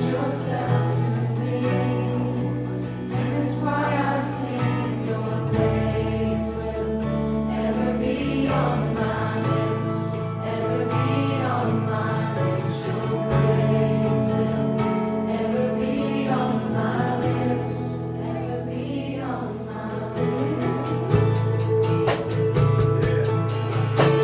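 Live worship music: a band with sustained keyboard chords and bass accompanying a slow song sung by the worship team and congregation. Drums and cymbals pick up near the end.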